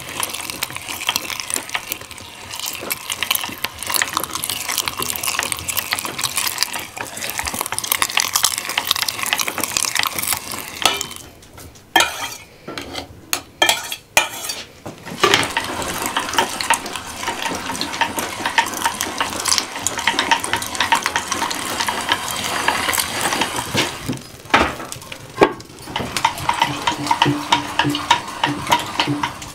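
Metal meat grinder mincing raw meat: continuous crackling and scraping as the meat is forced through, with a few short breaks around the middle and again about twenty-four seconds in.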